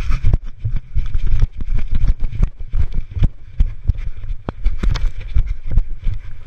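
A dog running on grass with an action camera mounted on its back: rapid, irregular thudding footfalls and the camera jolting and knocking against the dog's body.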